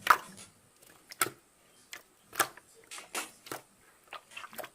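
Scattered light clicks and taps, about eight in all at uneven gaps, the loudest right at the start, as small objects are handled and set down.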